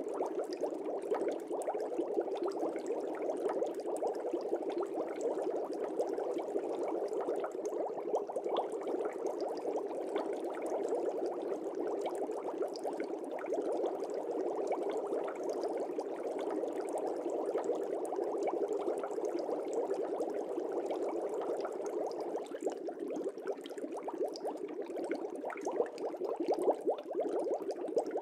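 Aquarium air bubbles bubbling steadily in the tank water, a continuous dense stream of small pops and gurgles.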